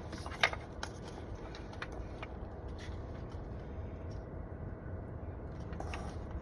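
Small clicks and handling noises from plastic trim clips and tools while a car's steering wheel trim is worked apart, with one sharp click about half a second in and fainter scattered ticks after, over a low steady hum.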